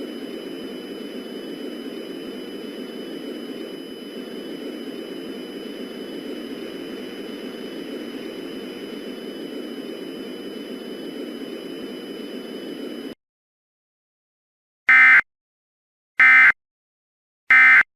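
A steady droning hiss with a few faint steady high tones, which cuts off suddenly about two-thirds of the way through. After a short silence come three short, loud digital data bursts about a second apart: Emergency Alert System end-of-message (EOM) tones, which close the alert.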